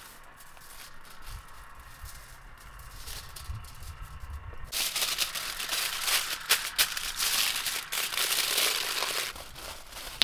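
A dense rattle of small dry pieces shaken or tumbling in a container. It starts abruptly about halfway through, lasts about four and a half seconds, then stops, with a low handling rumble before it.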